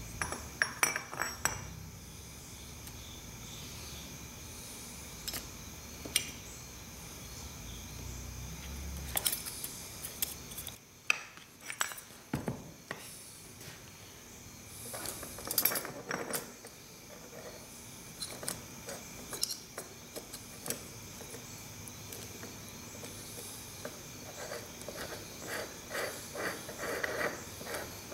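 Steel transmission gears, collars and shaft parts from a John Deere 4430 clinking and clicking against each other as they are handled and fitted together by hand, in scattered bursts.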